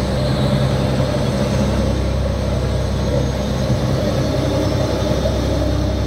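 Fishing boat's inboard engine running steadily at a constant speed: an even, unbroken low drone.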